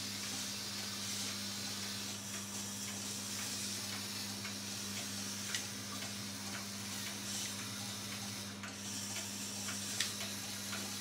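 Small Lego Technic medium electric motor whirring steadily through the chassis's plastic gear train as the model truck manoeuvres, with faint ticking and two sharper clicks, one about halfway and one near the end.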